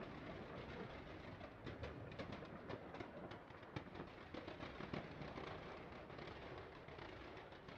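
Aerial fireworks firing fans of comets: a rapid, dense run of pops and crackles over a steady rush of noise.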